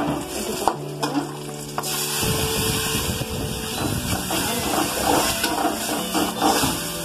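A metal spatula scrapes and stirs onions in a kadai. About two seconds in, a wet yellow spice paste goes into the hot oil and sets off a steady sizzle of frying.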